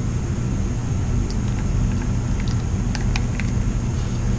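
Steady low background rumble with a faint high steady tone, and a few faint light clicks in the middle.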